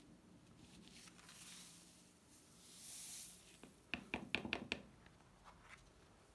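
Loose coloured sand hissing as it slides off a tipped-up sand-painting card, then a quick run of about half a dozen sharp taps as the card is knocked to shake off the excess sand.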